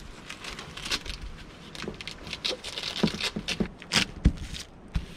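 Hook-and-loop (Velcro) strips on a camper's canvas skirt being pressed and rubbed along the edge of the bed base, an irregular run of crackling and scraping with canvas rustling, and a sharper knock about four seconds in.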